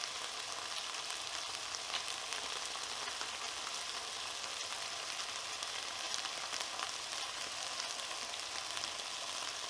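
Peppers, chillies and spring onion frying in a hot pan as the bulgogi beef sauce goes in: a steady sizzle with light crackles.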